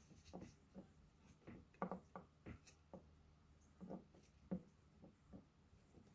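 Faint handling sounds of a small plastic blind-bag toy package being opened: about a dozen soft, separate clicks and rustles, the loudest about two seconds in and again near the middle.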